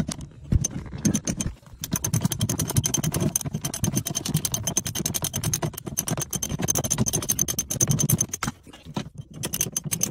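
Socket ratchet clicking rapidly in back-and-forth strokes as a seat-mounting bolt is unscrewed. The clicking starts about two seconds in, breaks off briefly about eight and a half seconds in, then resumes.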